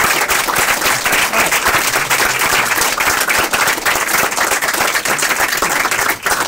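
Small audience applauding, a dense, steady patter of many hands clapping.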